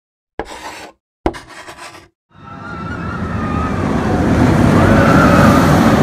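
Intro sound effect: two short sharp hits, then the rumble and rush of a roller coaster train approaching, building louder over about three seconds.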